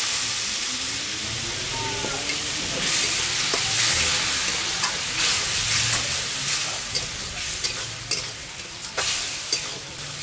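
Spiced onion-tomato masala sizzling hard in a metal kadai just after a splash of water has gone into the hot oil, while a flat metal spatula stirs it. Several sharp scrapes of the spatula on the pan near the end.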